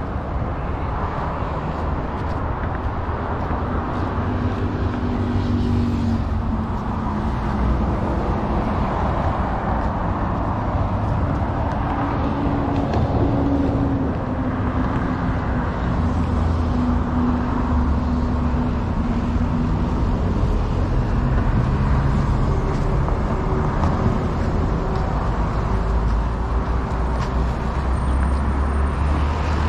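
Steady road traffic: car engines and tyres running continuously, with no single pass standing out.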